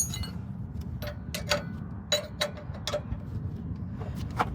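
Irregular light metallic clicks, a few a second, from a C-clamp being screwed tighter against a truck's brake caliper, with a steady low hum underneath.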